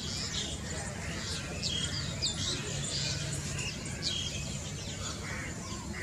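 Birds chirping: short, sharp, downward-sweeping chirps every half second to a second, thinning out toward the end, over a steady low rumble.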